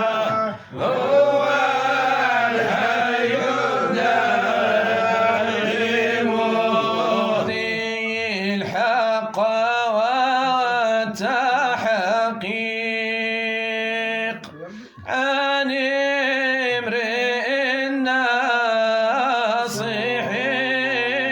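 A man's voice chanting a Sufi devotional qasida, unaccompanied, in long ornamented melodic phrases over a steady low drone, with short pauses for breath about half a second and about 15 seconds in.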